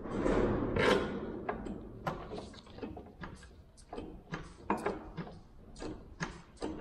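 Hands working at a racing kart's brake master cylinder: a scraping rustle in the first second, then a string of short, irregular metallic clicks and knocks as the fitting is handled and closed.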